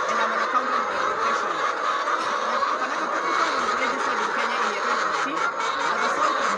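A large flock of laying hens calling and clucking all at once, many overlapping calls making a steady, unbroken din.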